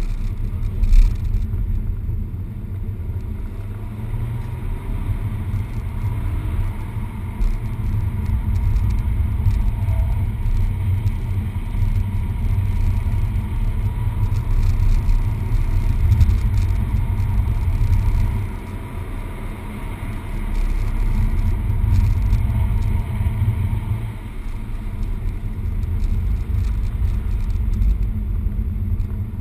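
Peugeot 208 GTi's 1.6-litre turbocharged four-cylinder engine running on track under load, heard from inside the cabin as a deep, steady rumble mixed with road noise. The level dips briefly twice, about 18 and 24 seconds in.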